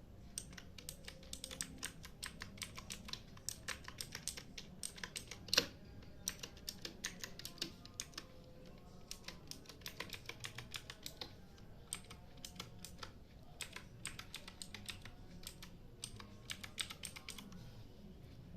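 Typing on a Gamen Titan Elite mechanical keyboard: quick runs of key clicks with short pauses, and one louder clack about five and a half seconds in.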